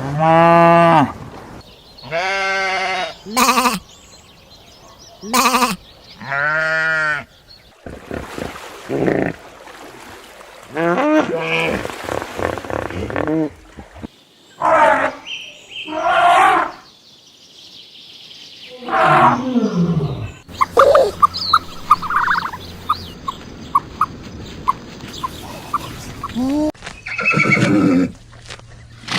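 A string of farm-animal calls from several species, one after another, mostly drawn-out calls about a second each, with a run of short rapid clicks in the second half.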